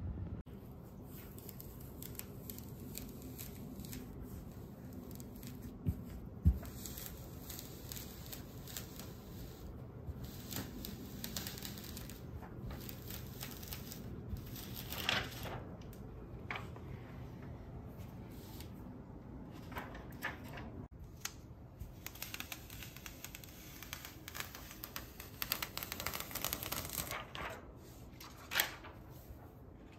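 Hands handling and smoothing cotton T-shirts: soft rustling and brushing of fabric, with a few sharp clicks and light knocks.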